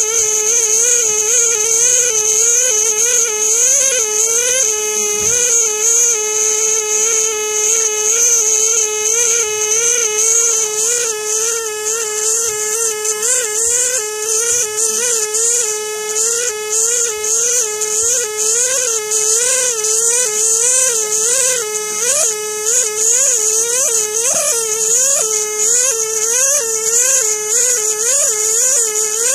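Pneumatic air scribe buzzing at a high steady pitch with a strong hiss of air, chipping the rock matrix away from a trilobite fossil. Its pitch dips and recovers over and over as the tip is pressed into the stone, more often toward the end.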